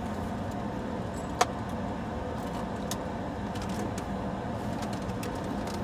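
Steady rumble of car cabin noise, with a sharp click about one and a half seconds in and scattered faint ticks.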